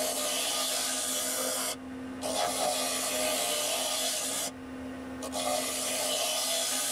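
Wood lathe running with a steady hum while a bent hollowing tool cuts inside a spinning piece of wood and resin, a scraping hiss. The hiss breaks off twice for under a second, and the lathe hum carries on through the breaks.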